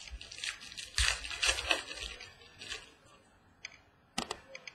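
Trading card pack being opened and cards handled: a crinkling rustle of the wrapper for the first two seconds, then a couple of sharp clicks about four seconds in.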